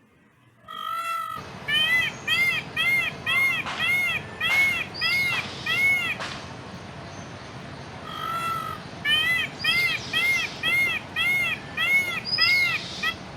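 Peacock calling: a drawn-out call, then a quick run of about nine short, arched calls at roughly two a second. After a pause comes another drawn-out call and a second run of the same short calls.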